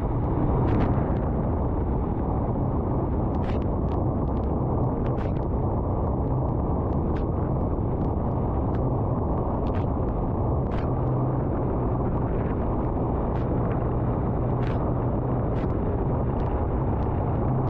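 Royal Enfield Himalayan's single-cylinder engine running steadily at road speed, under a heavy rumble of wind on the camera microphone. Scattered short ticks of raindrops strike the camera throughout.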